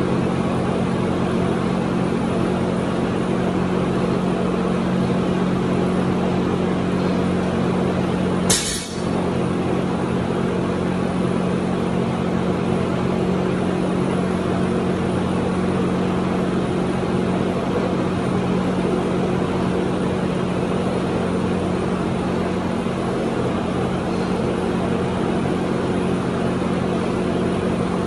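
A loaded barbell dropped once onto a rubber floor mat, a single sharp thud about eight and a half seconds in, over a steady loud mechanical drone with a low hum.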